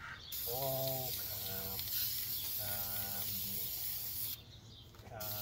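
Aerosol spray paint can hissing as paint is sprayed. The spray stops for about a second near the end, then starts again. Two brief pitched sounds, from a source that cannot be told, come through over the hiss.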